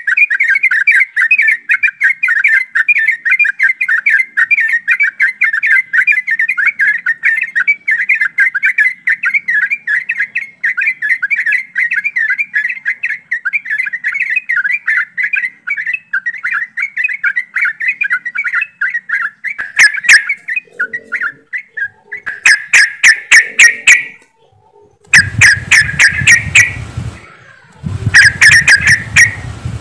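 A group of yellow-vented bulbuls chattering busily in rapid, overlapping notes. About two-thirds of the way through, the chatter gives way to louder, sharply clipped repeated call notes broken by short pauses.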